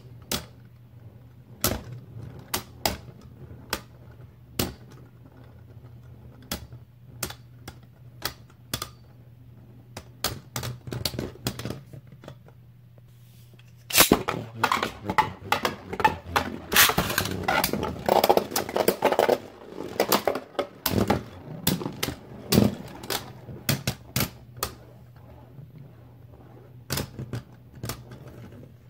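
Plastic Beyblade Burst spinning tops clicking and clacking as they hit each other and the stadium walls, in sharp separate knocks at irregular intervals. About halfway through comes a stretch of denser, louder plastic rattling and clatter as the tops are handled and set up again, then separate clicks return near the end.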